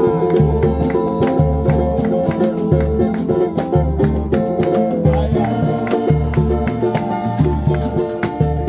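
Samba music without singing: a low drum beats in a steady rhythm under jingling tambourine and shaker, with held melodic notes over the top.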